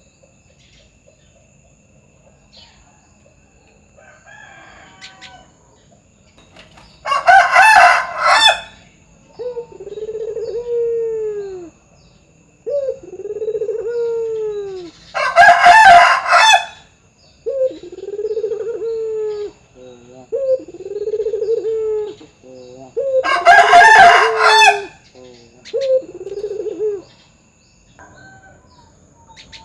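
Puter (domestic ringneck dove) cooing: a steady series of low, arching coos, each about a second long. Three times a much louder, harsher call, reaching far higher in pitch and lasting about two seconds, cuts across the cooing.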